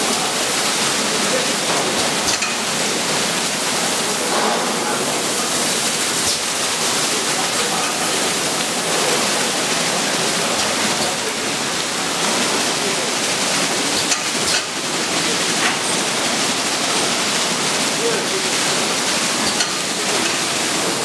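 Sino Star C7 brush car wash machine running, its spinning brushes and water spray making a steady rushing hiss.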